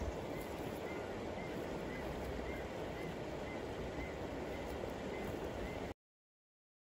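Steady outdoor rush of a shallow rocky river with some wind rumble, and faint high chirps every second or so. It cuts off suddenly to silence about six seconds in.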